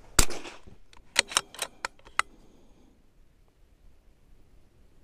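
.22LR bolt-action rifle fired once, a sharp crack with a short tail. About a second later come five quick metallic clicks as the bolt is worked for the next round.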